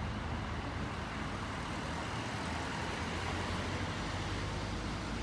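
Steady background road-traffic noise, an even low rumble with no distinct events.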